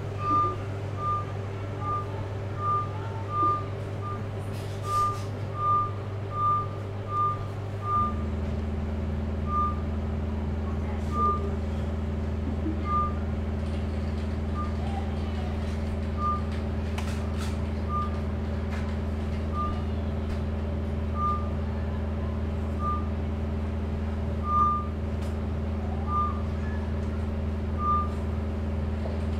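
Electronic tones: a steady low drone under short high beeps repeating about every three quarters of a second. About 8 seconds in, the drone shifts to a lower chord and the beeps slow to about one every second and a half.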